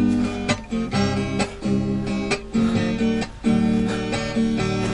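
Acoustic guitar strumming chords in a steady rhythm, the instrumental lead-in to a song.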